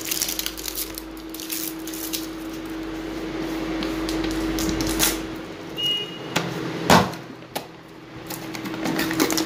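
Large plastic supplement jar being handled and opened: its screw lid taken off and the jar knocked and tapped a few times, the loudest knock about two-thirds of the way through, over a steady low hum.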